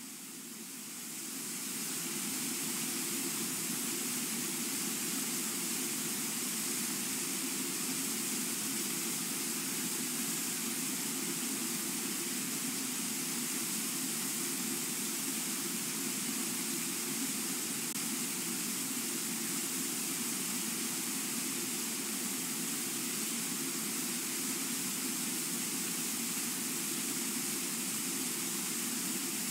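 Brooks Falls, a low river waterfall, and its rapids rushing steadily, fading in over the first two seconds.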